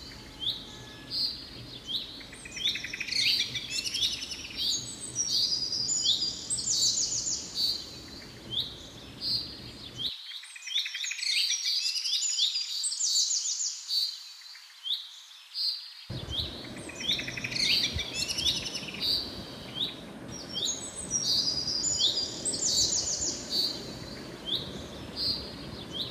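Small birds chirping, with quick high trills repeated phrase after phrase.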